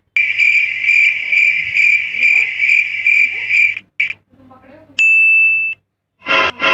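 Cricket chirping sound effect, the kind used for an awkward silence: a steady high chirp pulsing about twice a second for nearly four seconds. A short, loud, steady beep follows about five seconds in.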